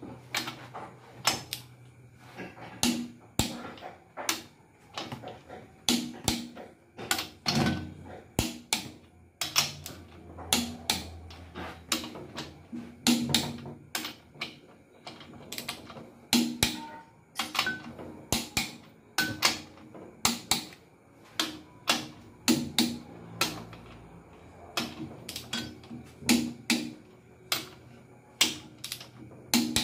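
Ratchet wrench clicking in quick runs as the main bearing cap bolts on a Mitsubishi 4D56 diesel engine block are drawn down.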